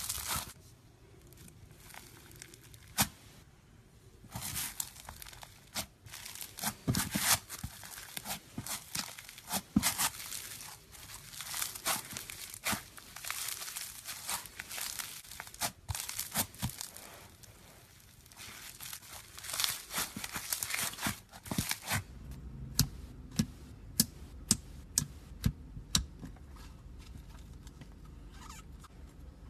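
Slime being squeezed, stretched and pulled apart by hand, with crackling, tearing and crinkling sounds. About three quarters of the way through, these give way to a run of separate sharp clicks as it is pressed.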